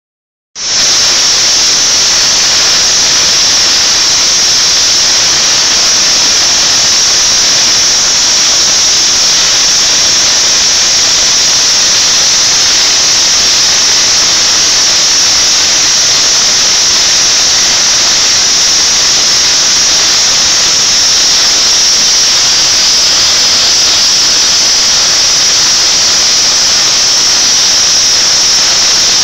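Steam locomotive's safety valves blowing off: a loud, steady, high-pitched hiss of escaping steam that starts about half a second in. The safety valves have lifted because the boiler is at full working pressure.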